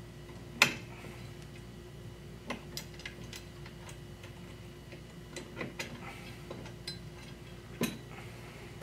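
Scattered small metallic clicks and taps as pliers pull steel pins from a massage chair's foot-rest mounting brackets and the brackets are handled. A sharp click about half a second in is the loudest, with another near the end.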